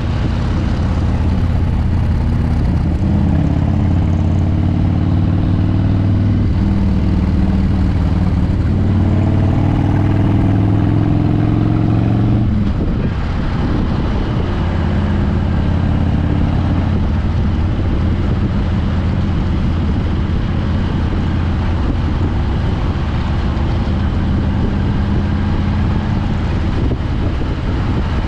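V-twin motorcycle engine running under way with wind rushing over the microphone. The engine note climbs steadily as the bike pulls for about ten seconds, drops sharply as the throttle is rolled off about halfway through, then runs on at a steady cruise.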